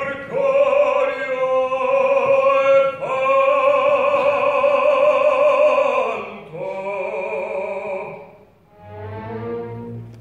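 Operatic baritone singing live in four long held phrases with wide vibrato; the last phrase is softer.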